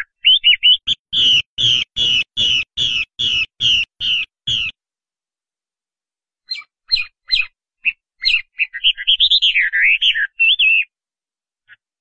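Chinese hwamei singing: a run of about nine loud, evenly repeated descending notes, a little over two a second, then after a short pause a quicker, varied string of notes and warbled phrases.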